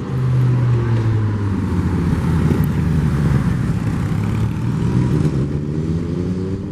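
A motor vehicle running close by, its low engine or motor hum loudest through the middle, with a pitch that rises near the end.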